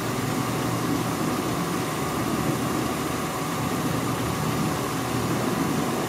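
GE Potscrubber 970 dishwasher running steadily, its wash pump motor under load and circulating water.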